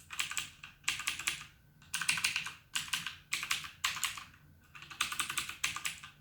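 Typing on a Blackweb mechanical gaming keyboard with clicky switches: about five quick bursts of keystrokes with short pauses between them.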